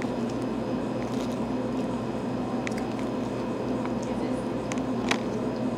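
Metal fork clicking a few times against a plastic food container while salad is scooped up, the sharpest click about five seconds in, over a steady background hum.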